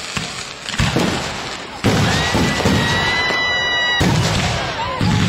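Aerial fireworks shells going off in quick succession, with sharp booms about one, two, four and five seconds in over a continuous crackling rumble. A steady high whistle runs for about two seconds in the middle and cuts off at the loudest boom.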